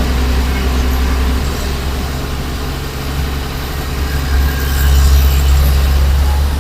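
Heavy earthmoving machinery's diesel engine running with a steady low rumble, growing louder about four to five seconds in.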